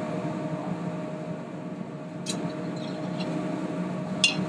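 Steady hum of a commercial kitchen, with a constant tone running under it, and two short clicks, one about two seconds in and one near the end.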